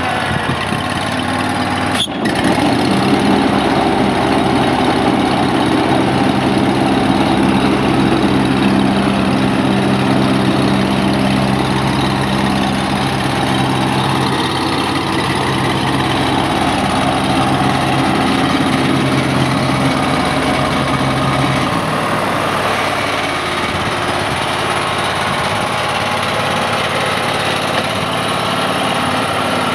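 Scag Cheetah zero-turn mower's Kohler Command Pro EFI V-twin engine running steadily, with a sharp click about two seconds in. About three-quarters of the way through, the engine's steady low note changes.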